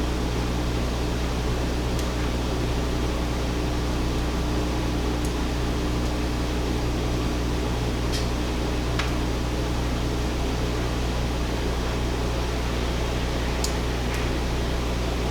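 Steady drone of a running laundry machine with a low hum, and a few faint, scattered clicks from lock picks working the pins of a padlock.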